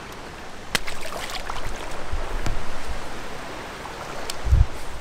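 Shallow creek water running steadily, with a few sharp clicks in the first second and a half and a loud low thump near the end.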